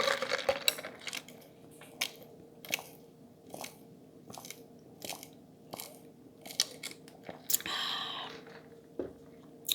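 Close-miked mouth sounds of someone drinking Coke: a row of soft gulping clicks, about one every 0.7 seconds. About three-quarters of the way through comes a breathy exhale.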